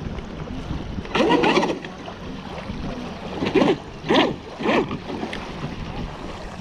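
Blackjack 42 RC catamaran's electric motor given short throttle blips while the boat sits in shallow water, the propeller churning up spray. One longer burst comes about a second in, then three brief revs in quick succession near the middle, each rising and falling in pitch.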